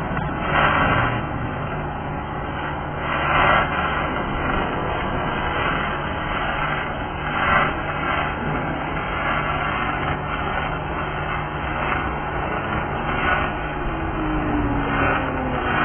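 MIG (wire-feed) welding arc crackling and sputtering steadily as a bead is run along a steel beam, with a few brief louder surges of spatter.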